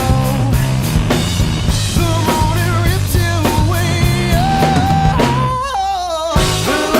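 Rock song with a drum kit, bass and a singing voice. About five and a half seconds in, the drums and bass drop out for under a second, leaving a held, wavering sung note sliding down, before the band comes back in.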